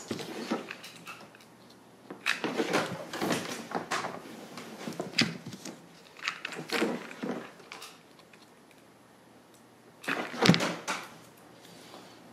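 Hands handling craft pieces on a cutting mat: several short bouts of rustling and light knocks, the loudest about ten seconds in.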